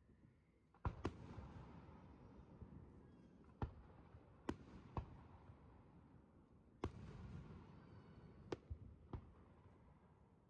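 Aerial firework shells bursting: about nine sharp bangs at irregular intervals, the two loudest trailing off over a couple of seconds.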